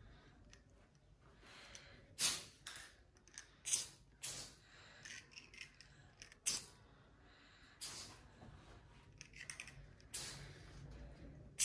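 Aerosol party snow spray can hissing in short spurts, about seven over the stretch, each a sharp hiss that dies away within half a second.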